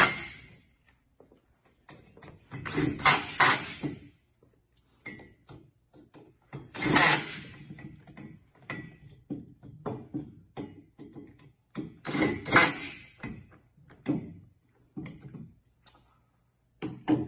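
Cordless drill driving the Allen bolts of a metal chair frame tight in several short bursts of about a second each. Light clicks and knocks of the metal frame being handled come between the bursts.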